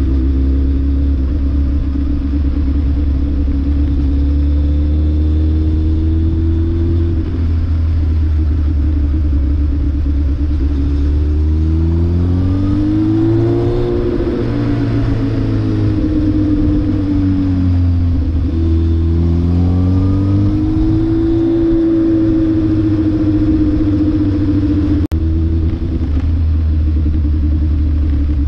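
Vehicle engine running while driving over a steady low rumble of road noise, its revs climbing and falling twice. A brief click sounds near the end.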